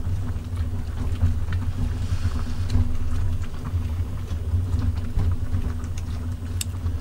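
Steady low rumble of a portable butane gas stove's flame under a pot of cooking ramen, with a few light clicks of chopsticks stirring the noodles in the pot.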